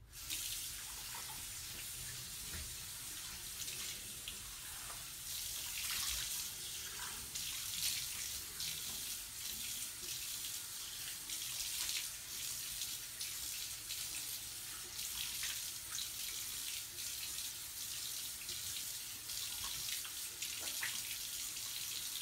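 Bathroom sink tap turned on and running in a steady stream into the basin, with uneven splashing as water is cupped up in the hands to rinse a facial scrub off the face.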